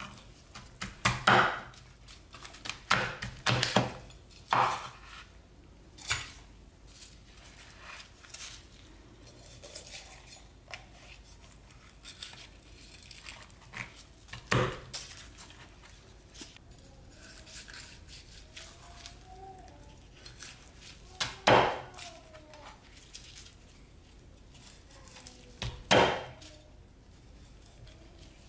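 Chinese cleaver chopping through a roast chicken onto a wooden cutting board: sharp knocks of the blade on the wood, a quick run of several in the first five seconds, then single chops spaced several seconds apart with small taps and cutting in between.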